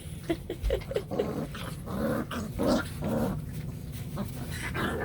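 Four-week-old bluetick coonhound puppies growling at each other in a run of short sounds during a play scuffle over food.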